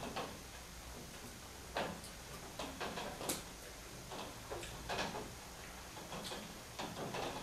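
Snus tin being handled, giving small, irregularly spaced clicks and taps.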